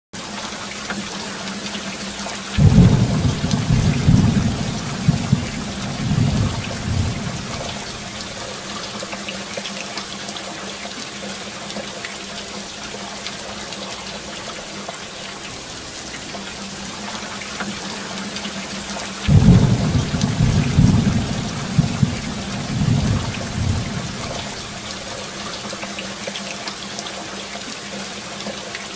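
Steady rain with two rolls of thunder, one about three seconds in and another about nineteen seconds in, each rumbling for about four seconds.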